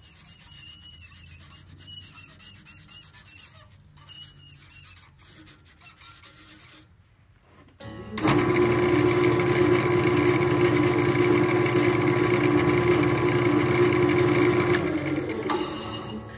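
An electric workshop machine starts abruptly about halfway through and runs steadily with a constant hum and whine. After about seven seconds it is switched off with a click and winds down near the end.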